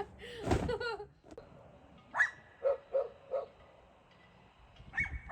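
A dog barking: one sharp bark about two seconds in, three quicker, lower barks after it, and more barks near the end.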